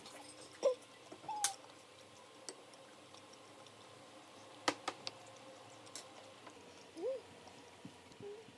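A few sharp light clicks and taps at irregular intervals, with a few short, faint pitched sounds in between.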